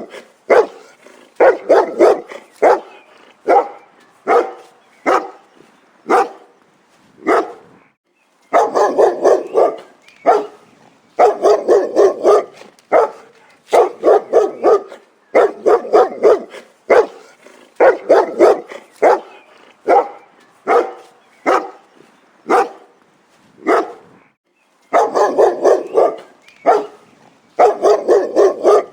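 Dog barking in rapid runs of several loud barks, with short pauses between the runs and two brief silent breaks.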